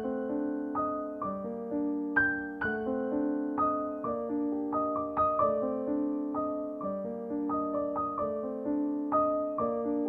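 Background music: a gentle piano melody of single struck notes that ring and fade, with a steady bass line.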